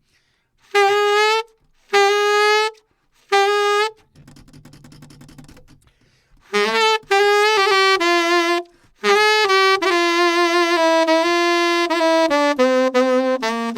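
Saxophone playing a slow melody: three short detached notes on the same pitch, a pause, then a long connected phrase stepping down in pitch. Some notes are bent up into pitch with side-key bending, from A-sharp to B.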